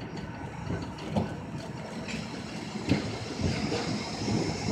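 1934 English Electric Blackpool boat tram running slowly on its rails with a steady rumble, and two sharp knocks a little under two seconds apart.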